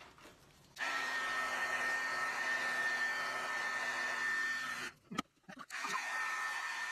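Handheld heat gun switched on about a second in, blowing steadily with a high whine over the airflow noise as it dries fresh paint. It cuts out briefly around five seconds in, then runs again.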